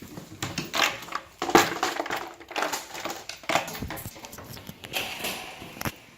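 A series of irregular knocks and clatters, some sharp, the loudest about one and a half seconds in.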